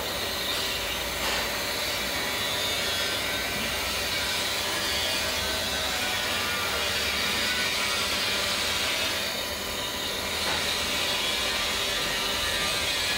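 Steady hiss of an aseptic bag-in-box filling machine running, with a couple of faint clicks.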